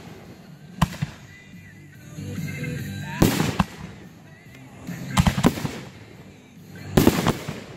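Aerial fireworks bursting overhead: sharp bangs in clusters about every two seconds, with crackling after some of the bursts.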